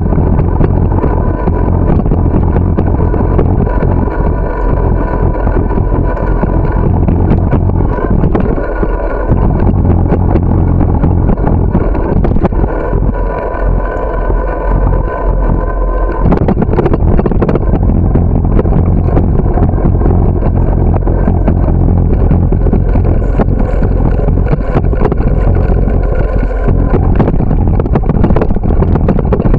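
Wind buffeting the microphone of a camera on a moving bicycle: a loud, steady low rumble, with frequent small rattles and knocks as the bike rolls over the path.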